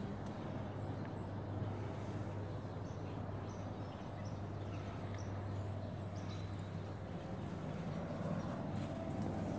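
Footsteps on a brick path over a steady low outdoor rumble, with a few faint short high chirps.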